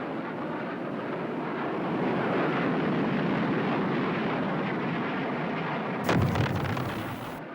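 A steady, dense roar that swells slightly midway, then a sudden loud blast about six seconds in, cut off abruptly about a second later: air-strike combat sound of a roar and an explosion.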